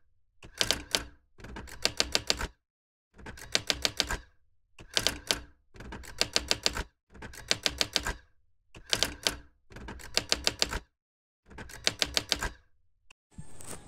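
Typewriter sound effect: bursts of rapid key clacks, about one burst a second with short silent gaps between them.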